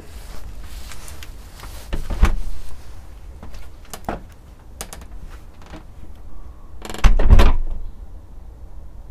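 Handling noise on the camera rig: two heavy bumps with rubbing, about two seconds in and again near the end, and a few light clicks between them, over a steady low rumble.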